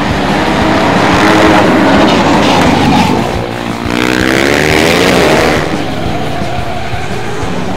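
Flat-track racing motorcycles passing at speed, their engines at high revs, the pitch sweeping up and down as the bikes go by. A short dip about three and a half seconds in, then a second loud pass.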